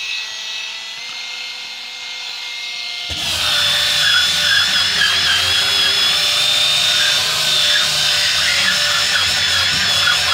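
Small handheld electric sander running with a high, steady motor whine. About three seconds in it grows louder and rougher, as when the pad works against the surface.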